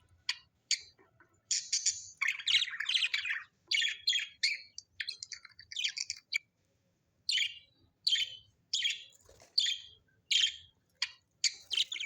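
Bird chirping in quick runs of short, sharp high notes. After a pause about six seconds in, it gives single chirps a little over half a second apart.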